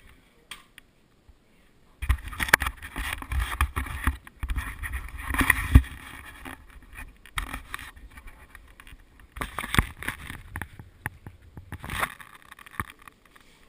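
Close rustling and scraping with many sharp knocks, in two bouts: one starting about two seconds in, the other in the last few seconds, typical of a worn camera rubbing and bumping against clothing and gear.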